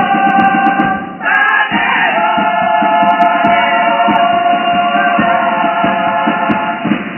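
Chirigota chorus of men singing together to strummed Spanish guitars, closing on a long held chord that breaks off near the end.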